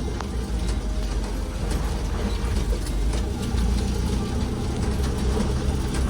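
A heavy engine running steadily at idle, a low, even rumble.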